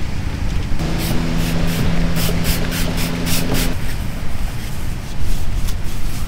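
Trigger spray bottle squirted about a dozen times in quick succession onto a car-roof solar panel, each squirt a short hiss, with a steady low hum alongside that stops with the sprays.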